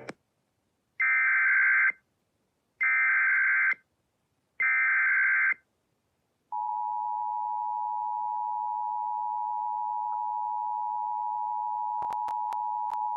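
Emergency Alert System SAME header: three identical one-second bursts of raspy digital data tones, each followed by a short silence. Then the steady two-tone EAS attention signal begins and holds, with a few sharp clicks near the end. Together they announce a Severe Thunderstorm Warning.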